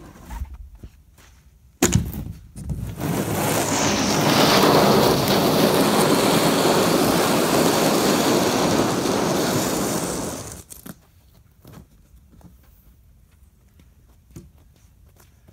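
A sheet of plywood lands on the driveway with a sharp thump about two seconds in, then its edge scrapes along the pavement for about eight seconds as it is pushed like a plow through the snow. The scraping stops suddenly.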